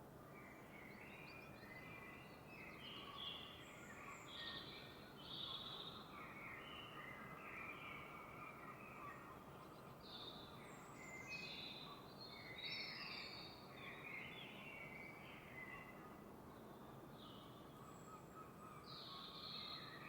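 Faint chorus of songbirds at dawn: many short chirps and warbled phrases overlapping throughout, over a steady low hiss.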